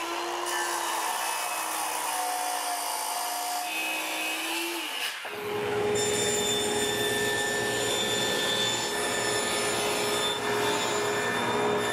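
A circular saw running on a guide rail as it cuts through a sheet of plywood, its pitch rising slightly near the end of the cut. About five seconds in it gives way to a table saw running steadily, louder and with a higher hum, as plywood is fed across it.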